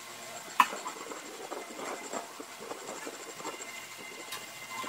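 Hands working on a Rockwell Model 14 band saw that is switched off: one sharp click about half a second in, then scattered light taps, clicks and rubbing as its parts are handled.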